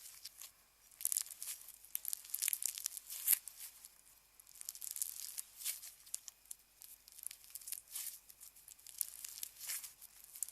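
Slime being worked, giving irregular runs of sticky crackling and small pops with brief pauses in between.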